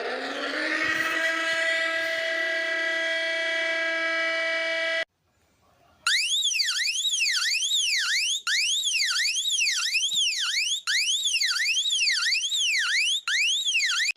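Two alarm sounds in turn. The first is a siren tone that rises in pitch for about a second, holds steady for about four seconds and cuts off. After a second's gap, a high electronic siren sweeps rapidly up and down, a little more than once a second.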